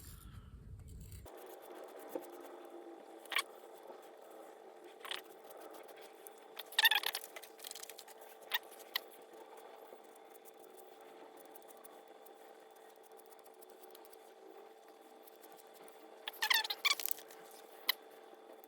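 Diamond sharpening stick scraping along the steel edge of a skew chisel: scattered short scrapes and clicks, with two longer scratchy passes about seven seconds in and again near the end, over a faint steady hum.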